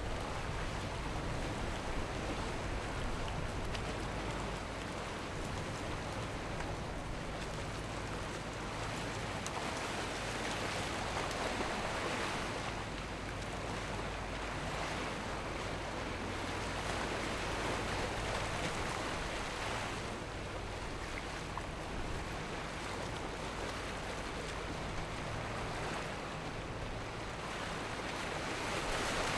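Breaking surf and churning wake washing, swelling louder several times, with wind on the microphone. Under it is a low, steady rumble from the motor yacht's engines.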